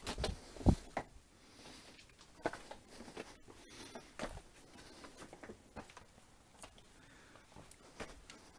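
Footsteps scuffing and crunching over loose rock and rubble, with scattered irregular knocks and a loud thump under a second in.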